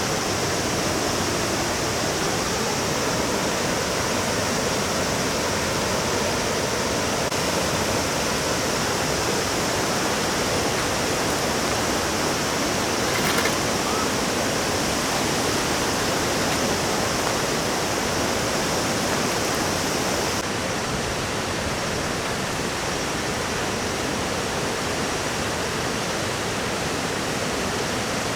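Mountain stream rushing steadily over rocks. A brief click comes about halfway through, and the high hiss thins out about two-thirds of the way in.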